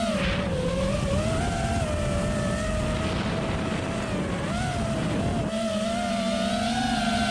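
5-inch FPV quadcopter's brushless motors (2008-size, 1950kv, on 6S) whining, the pitch wavering up and down with throttle, with wind rumbling on the onboard camera microphone until about five and a half seconds in.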